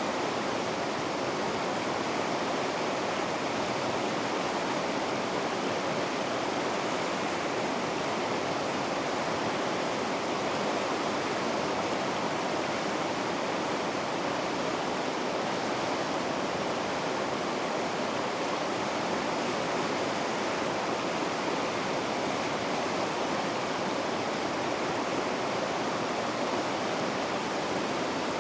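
River rapids rushing: a steady, unbroken roar of white water.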